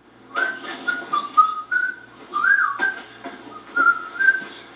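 A person whistling a short tune, a string of clear held notes stepping up and down in pitch, heard through a television's speaker.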